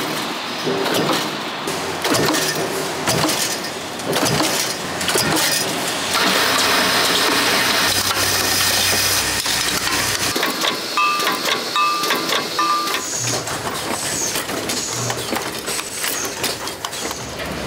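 Oil filter factory production machinery running, with repeated metallic clanks and knocks, a few seconds of steady hiss in the middle, and a few short electronic beeps a little after halfway.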